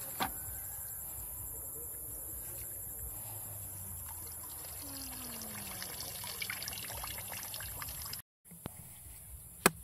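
Muddy water trickling and pouring out of the short plastic pipes stuck into a green coconut as it is lifted out of a puddle. A sharp click near the end.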